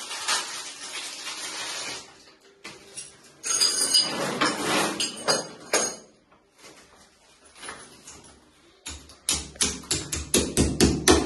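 Noisy handling and clattering for the first few seconds, then from about nine seconds in a rapid run of sharp hammer strikes on the bathroom wall, about four a second.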